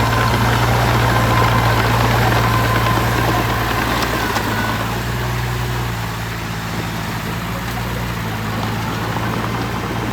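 Engine of a piece of heavy construction machinery running steadily, with a thin high whine that fades out about halfway through.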